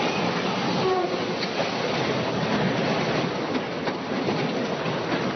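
Double-stack intermodal freight train derailing: a continuous loud rumble and clatter of the cars and toppling containers, with a few sharp clanks.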